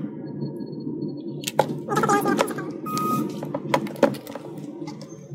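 Small clicks and taps of parts being handled on a workbench, several between about one and a half and four seconds in, over a steady low background rumble, with a short beep about three seconds in.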